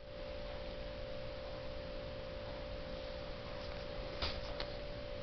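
A steady, unwavering mid-pitched tone over a faint hiss, with a couple of faint clicks about four seconds in.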